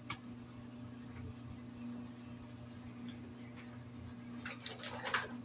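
Quiet room tone with a steady low hum, and a few light clicks and rustles near the end.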